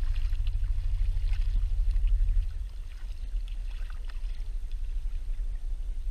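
Polarcirkel boat under way on calm water: a steady low rumble with small splashes of water along the hull. It eases a little about two and a half seconds in.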